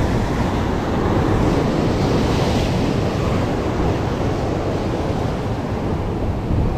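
Rough sea surf breaking and churning against coastal rocks, a steady continuous rush, with wind buffeting the microphone.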